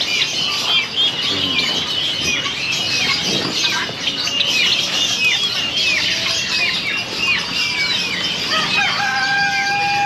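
Caged chickens and small birds calling together in a constant chorus of high, short chirps, several a second. About a second before the end a rooster crows once on a held note.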